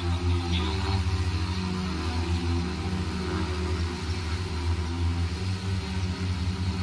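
Propellers of a JT16L multirotor agricultural spraying drone humming steadily in flight, a low hum that wavers slightly.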